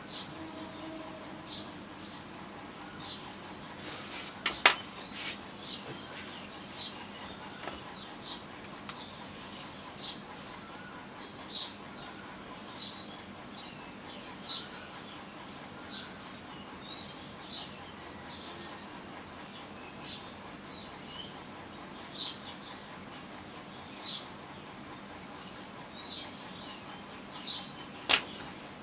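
A bird chirping over and over, one short high call about every second or two, over a faint fast high-pitched ticking. Two sharp clicks stand out, one about five seconds in and one near the end.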